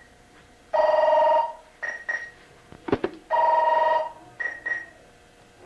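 Cell phone ringing with an electronic warbling ring: two long rings about two and a half seconds apart, with short paired high beeps between them. A brief knock sounds about three seconds in.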